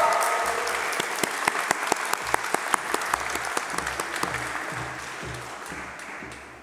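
Audience applauding, the clapping thinning out and fading away.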